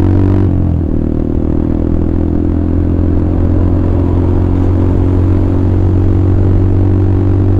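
Motorcycle engine and exhaust running steadily at cruising speed, with a brief dip in pitch about half a second in.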